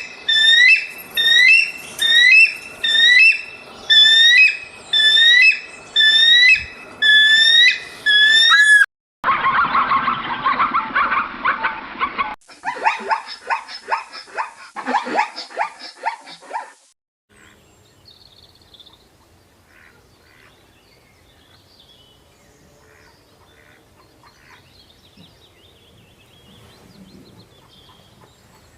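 A run of different animal calls. First come about nine loud, rising calls roughly a second apart. These are followed by a dense, harsh burst, then a quick series of sharp calls, and faint scattered bird chirping for the last dozen seconds.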